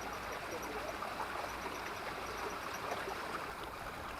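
Water trickling and rippling steadily, an even, continuous wash.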